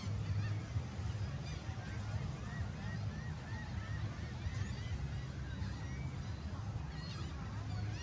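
A flock of birds calling: many short, overlapping calls over a steady low rumble.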